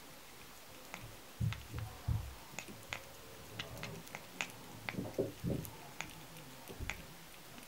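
A cat licking and mouthing a peeled banana: a scatter of small wet clicks and smacks from its tongue, with a few soft low thumps among them.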